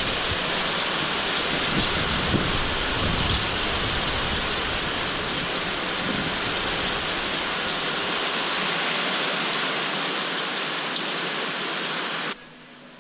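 Small hail coming down with rain, a steady dense patter that cuts off abruptly about twelve seconds in.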